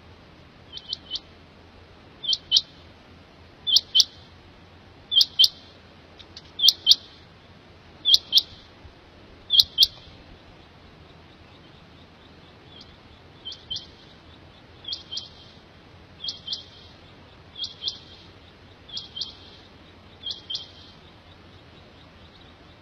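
Quail (batair) calling: short, high, two- or three-note phrases, repeated about every one and a half seconds in two runs, with a pause of about three seconds between them.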